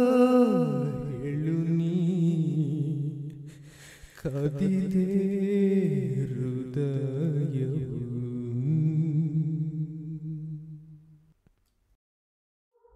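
A lone voice humming a slow melody a cappella, with long held notes and gentle glides between them. It breaks off briefly about four seconds in and stops about eleven seconds in.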